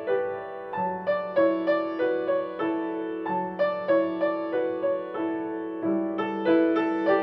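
Background piano music: a slow, gentle melody of single struck notes, each fading away, over held low notes.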